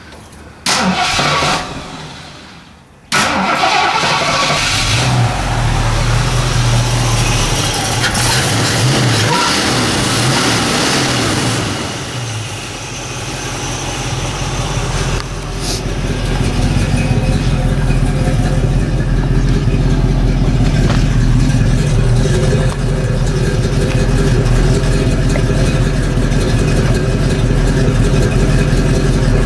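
1970 Ford Mustang Mach 1 V8, reluctant to start after sitting: a short start attempt about a second in, then it catches about three seconds in, is revved for several seconds, and settles into a steady idle.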